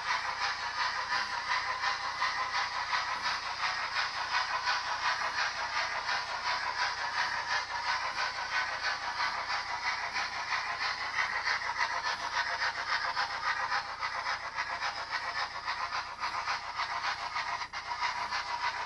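OO gauge model Princess Pacific steam locomotive's DCC sound decoder playing steam chuffs and hiss through its small onboard speaker: a fast, steady beat with no bass, running on without a break.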